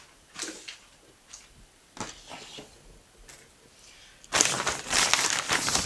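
Parts packaging being handled: a few light clicks and rustles, then from about four seconds in a loud, continuous crinkling as the wrapping is worked open.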